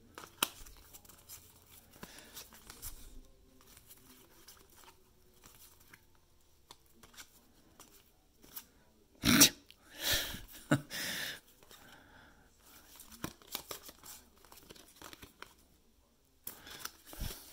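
Baseball trading cards being thumbed through and slid off a stack by hand, a run of soft clicks and rustles of cardstock, with a few louder bursts of scuffing noise about halfway through.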